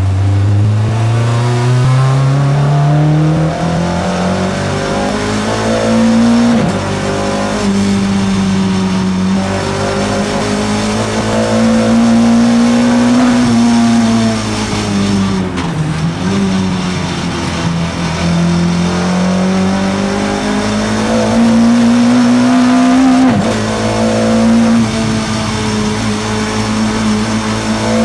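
Race car engine heard from inside the cockpit, revving up hard through the gears. There are sharp upshifts about six and a half seconds and twenty-three seconds in, and a brief dip in revs around sixteen seconds.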